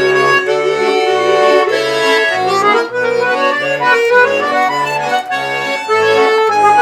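Garmon (Russian button accordion) playing an instrumental interlude of a folk-style song, a melody over an alternating bass-and-chord accompaniment.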